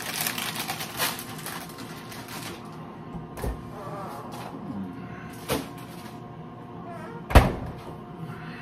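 Plastic packaging crinkling, then a few soft knocks and a refrigerator door shutting with a thud about seven seconds in, the loudest sound.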